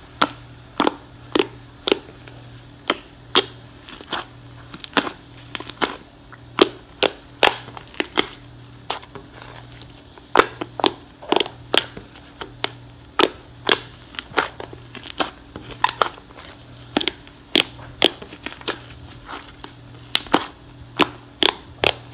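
Freshly activated fluffy slime, made of glue, shaving cream and soap set with contact solution, being kneaded and squeezed by hand: sharp, irregular pops and clicks of trapped air, about two a second, over a faint steady hum.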